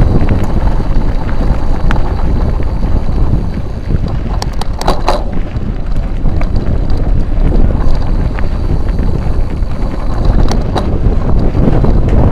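Wind buffeting the microphone of a camera riding along on a mountain bike over a dirt track, with scattered rattles and clicks from the bike, a quick cluster of them about five seconds in.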